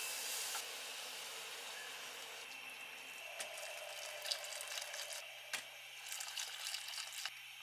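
Hot water poured from an electric kettle into a pot of tomato soup base, starting about three seconds in, while a wire whisk clicks and scrapes against the pot.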